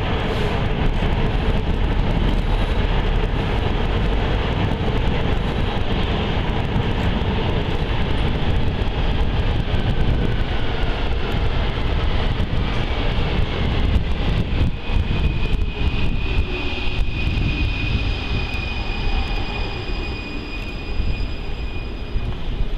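Loud, steady rumble of an underground rail station with trains running. About halfway through, a steady high whine comes in.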